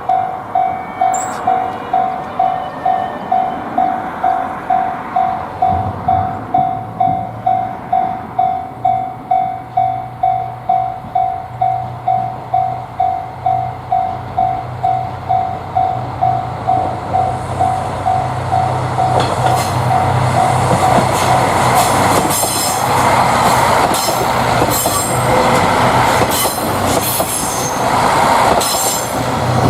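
Japanese railway level-crossing warning bell ringing in a steady clang about twice a second. A train's low running drone comes in about six seconds in, and from about twenty seconds in the train passes, its wheels clattering over the rail joints and drowning out the bell.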